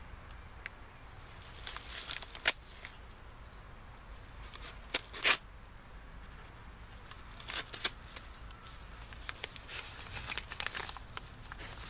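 A knife blade slitting open a padded paper mailer, heard as a few short scraping and crinkling strokes spaced a few seconds apart, the sharpest about two and a half and five seconds in. A steady high thin insect trill runs underneath.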